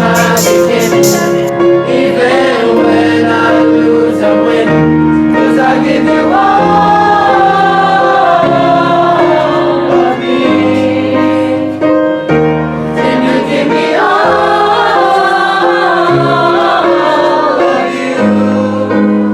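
Music with a group of voices singing sustained, choir-like chords over a held accompaniment, with melody lines that swell and waver in two longer phrases.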